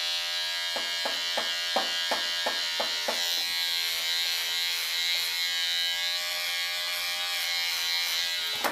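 Electric hair clipper buzzing steadily while cutting hair, with a quick run of about eight strokes through the hair in the first three seconds. It switches off at the end.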